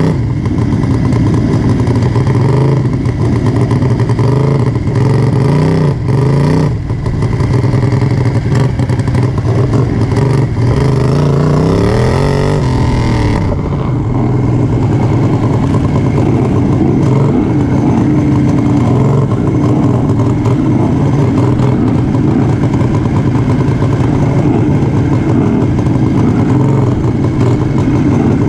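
Racing lawn mower engine running hard, heard from onboard, with other racing mowers around it. Its pitch rises and falls sharply about halfway through, then the engine holds a steady high speed.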